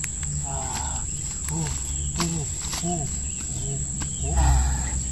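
Insects droning steadily at a high pitch, over short animal calls repeated every half second or so and a few soft knocks. A louder bump comes about four and a half seconds in.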